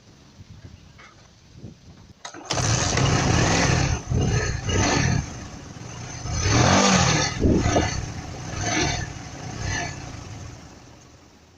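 Bajaj Boxer motorcycle's single-cylinder four-stroke engine starting about two and a half seconds in, then blipped up and down several times before it settles and fades. This is a test run after the spark plug threads have been repaired.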